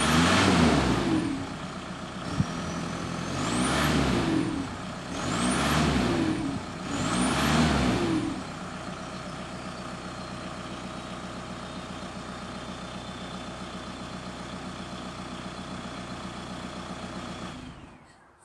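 Volkswagen Passat B5's 1.9 TDI (AFN) diesel engine running with its middle silencer missing, so the exhaust is louder than stock. It is blipped four times in the first eight seconds, a high whistle rising and falling with each blip, then settles to a steady idle. The sound falls away near the end.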